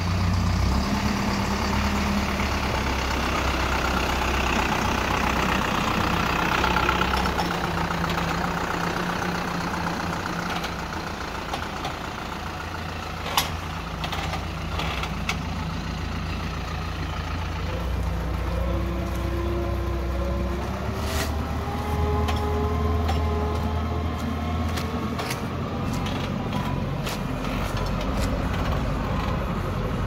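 Diesel farm tractor engine running steadily as it drives, its note shifting about eighteen seconds in. Sharp knocks come a few times, more often near the end.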